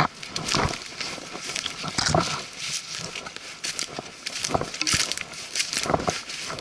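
Footsteps crunching through dry leaf litter and dead sticks, with a trekking pole striking the ground: an irregular run of crackles, snaps and knocks.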